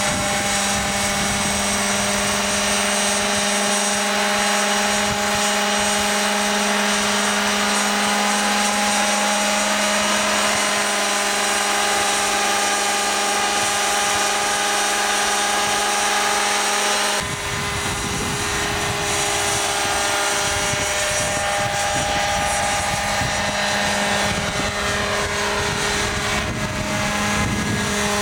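Radio-controlled scale helicopter in flight, its engine and rotors giving a steady droning whine. About two-thirds of the way through, the sound shifts: a low rumble comes in and the drone's lowest note fades for a few seconds before returning.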